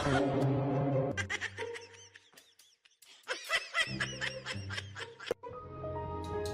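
Background music, with a person laughing in short repeated bursts twice.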